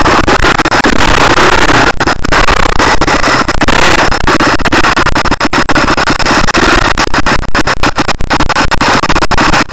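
KTM dirt bike engine running hard as the bike climbs a dirt slope, picked up very loud and distorted by the on-board camera microphone, with frequent brief crackling dropouts.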